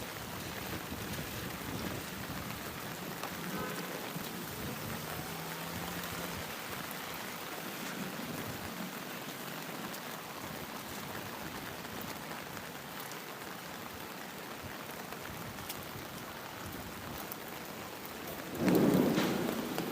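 Steady heavy rain falling, an even hiss, with a sudden loud rumble of thunder about a second before the end that swells and then fades.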